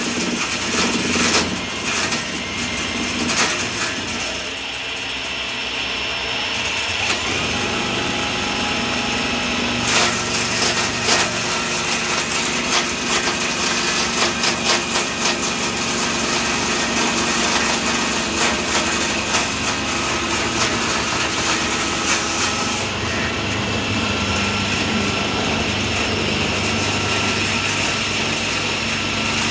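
Table saw running with its blade cutting into a teak post that a handheld cordless drill spins above it on a table-saw lathe jig: a steady, dense cutting noise with the drill's motor running.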